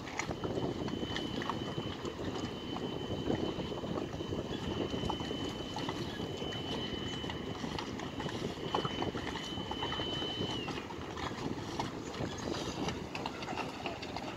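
Harbour background noise: a steady low rumble of wind and water, with scattered light knocks and clicks from work on the pontoon. A thin, steady high tone sounds through most of it, dips slightly and stops about ten and a half seconds in.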